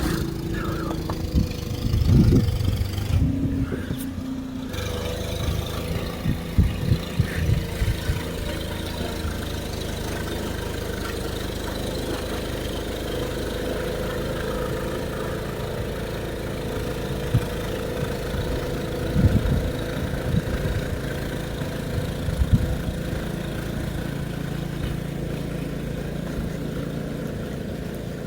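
An engine idling steadily with a low, even hum, with a few short knocks and thumps over it.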